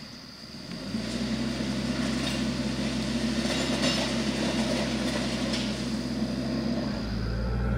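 TYM compact tractor's diesel engine running steadily under load as it pulls a land plane, getting louder about a second in as the tractor comes closer.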